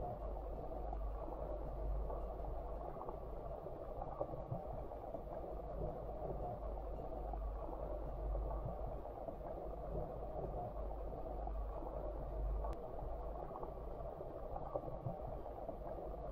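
Muffled underwater stream ambience picked up by a submerged camera: a steady dull rushing hiss over a low rumble, with one faint tick about twelve seconds in.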